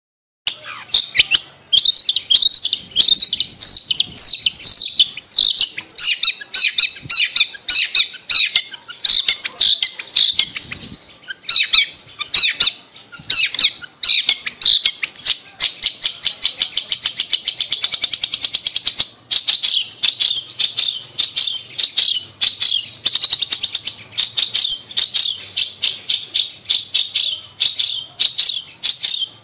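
Long-tailed shrike (cendet) singing a fast, busy song of chattering and repeated sharp notes, with a rapid, even trill a little past halfway.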